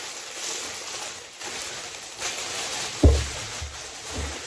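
Rustling and handling noise of clothes being unpacked close to the microphone, with a heavy bump against the microphone about three seconds in and softer bumps after it.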